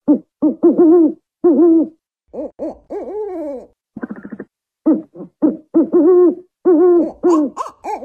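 African wood owl hooting: a rapid, irregular series of short hoots, with several longer calls that fall in pitch.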